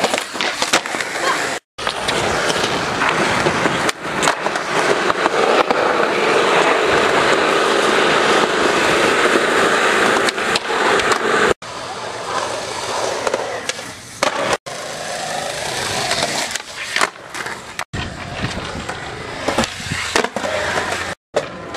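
Skateboard wheels rolling on concrete, with sharp clacks of tail pops and landings and the scraping of the board grinding and sliding on ledges. The sound breaks off abruptly several times between clips.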